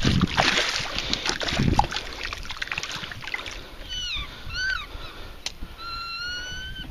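A hooked northern pike splashing and thrashing in shallow water among rocks, loudest in the first two seconds. Then a bird gives a few short calls and one longer call near the end.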